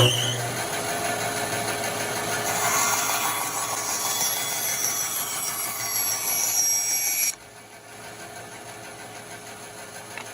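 Bandsaw cutting a curved arc through a wood board, a steady machine hum with a high whine over it. About seven seconds in, the cutting noise drops away sharply, leaving the saw running more quietly.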